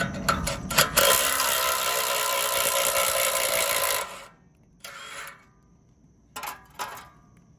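Work at the hub of a condenser fan blade to free it from the fan motor shaft: about three seconds of loud steady mechanical noise that cuts off suddenly, then a few short scrapes and clicks as the blade is worked off the shaft.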